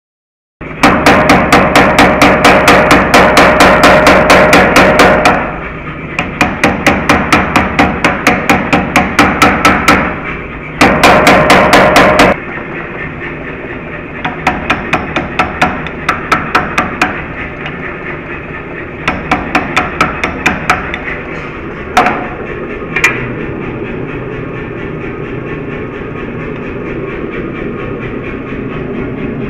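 Hammer blows on hot steel at the anvil, in fast regular runs of several strikes a second, drawing out and folding a billet of blister steel into shear steel. After about twelve seconds the runs are lighter and shorter, with two single strikes later on, over the steady roar of a gas forge.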